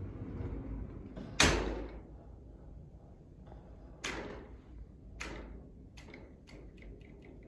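Three sharp knocks over a low background, the loudest about a second and a half in and each ringing out briefly, followed near the end by a run of faint quick clicks.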